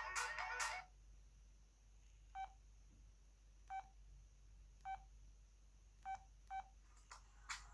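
O2 Ice mobile phone: a ringtone preview stops about a second in, then five short keypad beeps sound at irregular intervals as its buttons are pressed, and the next ringtone starts near the end.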